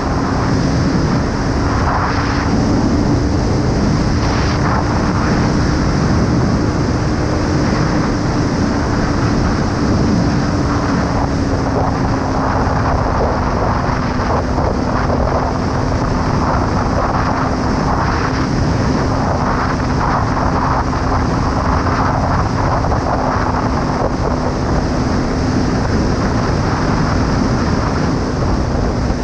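Kawasaki ER-5 parallel-twin motorcycle engine running under way with a steady note, its pitch easing down slightly about eleven seconds in, over heavy wind noise on the microphone.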